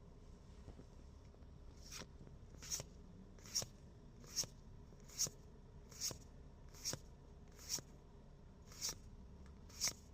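One Piece Card Game trading cards being flipped through one at a time, card sliding off card in a short crisp swish. Ten swishes come at a steady pace of about one a second, starting about two seconds in.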